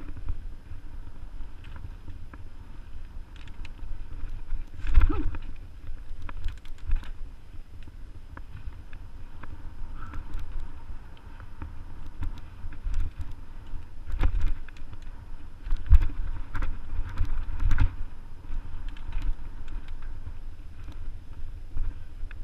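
Mountain bike riding over a dirt trail, heard from a camera on the rider: steady wind buffeting and tyre rumble, with frequent rattles and clicks from the bike. Harder knocks come as it hits bumps, the loudest about five, fourteen, sixteen and eighteen seconds in.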